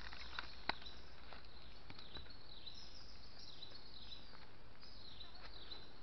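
Rural field ambience: a steady faint hiss with faint high chirping calls throughout, and a sharp click just under a second in.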